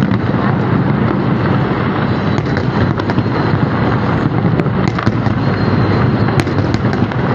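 New Year fireworks display: a dense, continuous barrage of booming bursts and crackling, with sharp pops scattered throughout.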